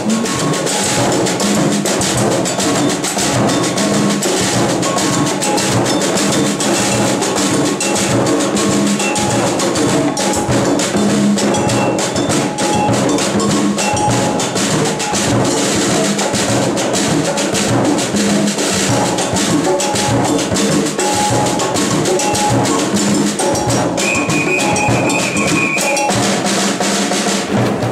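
Percussion group playing hand drums (djembes and congas) and a large metal-shelled drum in a steady rhythm. A whistle blows one held note near the end.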